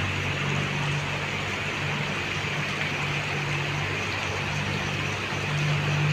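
Heavy rain falling steadily, a hard even downpour, with a steady low hum underneath.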